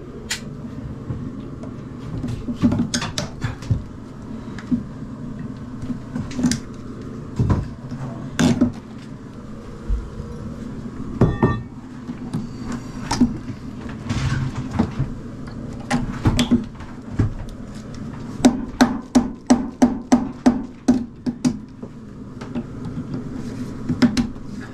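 Pliers gripping and pulling old staples out of wooden floor joists: irregular sharp clicks and knocks of metal on wood, with a quick run of clicks about two thirds of the way through, over a steady low hum.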